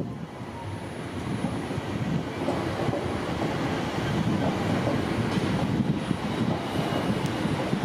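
Nordwestbahn Regio-S-Bahn class 440 electric multiple unit pulling out past the platform: a steady rumble of wheels on the rails, growing louder over the first couple of seconds and then holding even.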